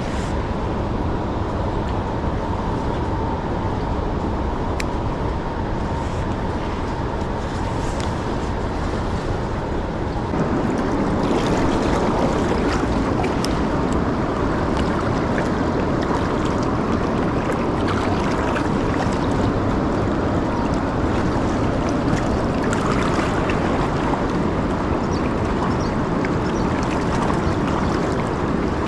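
Steady wind noise on the microphone by the river, getting louder about ten seconds in.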